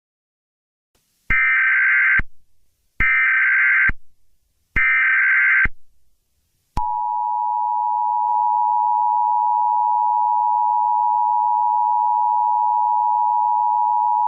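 Emergency Alert System broadcast tones: three short bursts of the SAME data header, a harsh buzzing screech, evenly spaced over the first six seconds. About a second after the last burst the two-tone EAS attention signal starts, a long, steady, dissonant beep.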